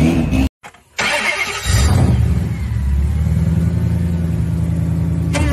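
A Dodge Viper fitted with a swapped supercharged Hellcat Redeye 6.2-litre V8 fires up with a loud burst about a second in, then runs steadily at idle. A Viper's V10 is briefly heard pulling away before the sound cuts out just before the start-up.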